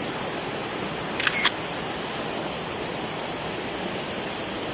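Steady rushing of a small waterfall, with a brief pair of sharp clicks a little over a second in.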